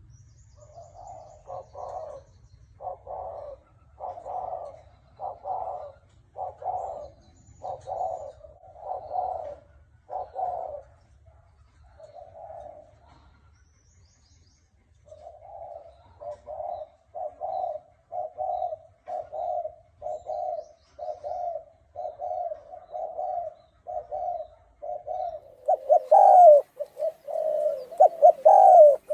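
Deep, hoarse-voiced spotted dove of the Thai cage strain cooing in a series of short coos, about one a second. The coos pause for a couple of seconds near the middle, then resume and grow louder near the end.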